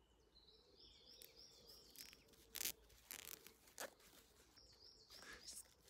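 Faint crinkling of artificial leaves and mesh netting being handled, a few short crackles. Behind them a bird sings a quick run of repeated high chirps, once soon after the start and again near the end.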